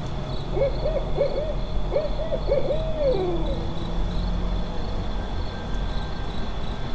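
An owl hooting: two quick runs of short hoots, then a longer hoot that slides down about three seconds in, over a steady low rumble.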